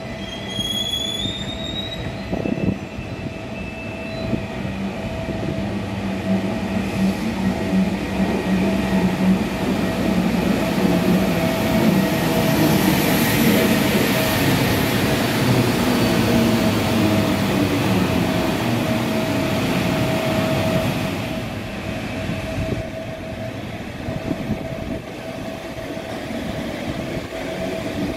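SBB Ce 6/8 III 'Crocodile' electric locomotive running past close by, its low running noise and motor hum loudest in the middle and dropping away about 21 s in. Short rising squeals come in the first second or so, and a steady high hum sounds throughout.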